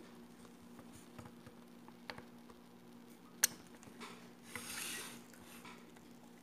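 Quiet handling of a seafood boil on a metal tray: faint squishing and small clicks of crab shells and food being picked at, with one sharp click about three and a half seconds in and a short rustle near the end, over a steady low hum.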